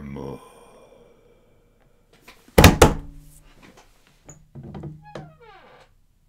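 A held sung note breaks off. About two and a half seconds later come two loud thumps in quick succession, followed by a few faint knocks and a short falling squeak near the end.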